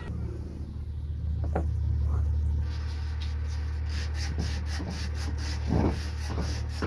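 Hand scraping and rubbing of metal parts on a dismantled tractor starter motor, with a few knocks. From about three seconds in the scraping becomes a quick, even run of strokes, four or five a second, over a steady low hum.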